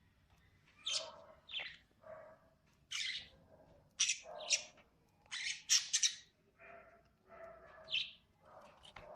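Small pet birds chirping and chattering: short, sharp high chirps come one after another from about a second in, with softer lower chatter between them.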